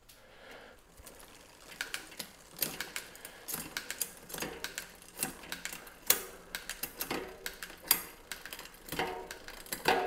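A mountain bike drivetrain, chain running over a Sunrace CSMX3 11-46 10-speed cassette with the crank turned by hand, gives a run of sharp clicks and clunks as the rear derailleur shifts the chain from cog to cog. This is a shift test of the newly fitted cassette.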